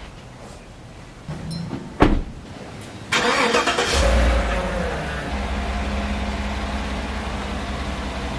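A GMC Sierra pickup's door shuts with a thump about two seconds in, then the engine is cranked and starts about a second later, flares briefly and settles into a steady idle.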